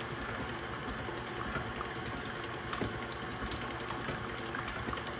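Tilt-head stand mixer running steadily with its beater turning in a steel bowl, with light irregular ticking throughout; the head is held down by hand because it will not lock.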